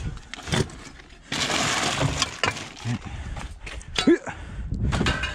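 Empty drink cans and small scrap clattering and clinking against the metal of a pickup truck bed as they are scooped out by hand and tossed, a string of sharp knocks with a stretch of rough rustling noise about a second and a half in.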